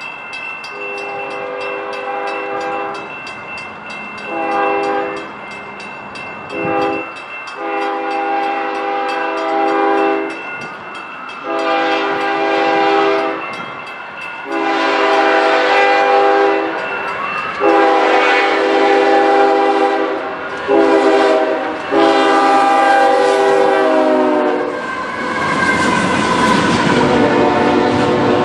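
Freight locomotive air horn, several notes sounding together, blowing a run of long and short blasts that grow louder as the train approaches. The horn stops about four seconds before the end, and the wheels of the passing double-stack container cars rumble and clack.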